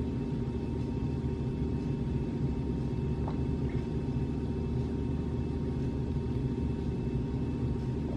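Steady low machine hum with a few fixed tones in it, unchanging throughout.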